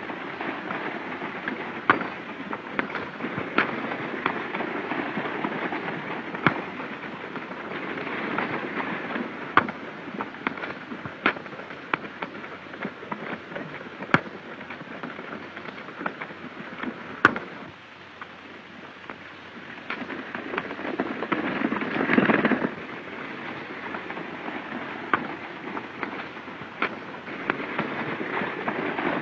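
Scattered gunshots in a western gunfight, more than a dozen sharp cracks at uneven intervals over a steady hissing background. A louder rushing burst comes about three-quarters of the way through.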